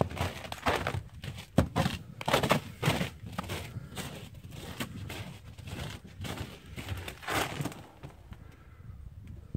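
Footsteps crunching through snow, an uneven series of crisp crunches about one or two a second, thinning out in the last couple of seconds.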